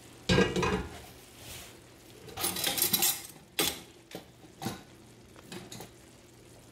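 Metal cookware and utensils clattering: a heavy knock just after the start, a rattling clatter near the middle, then a few sharp clinks.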